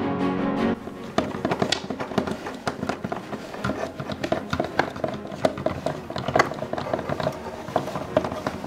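Irregular small clicks and taps of hard plastic as a tiny Disney Princess Little Kingdom doll is fitted with its clip-on plastic bridal gown. Background music cuts off within the first second.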